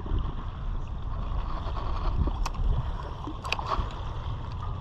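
Low, uneven rumble of wind buffeting the microphone, with a couple of faint clicks about two and a half and three and a half seconds in.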